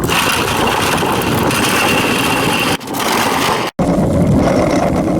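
Vehicle engine running loudly, pieced together with two abrupt cuts about three and four seconds in.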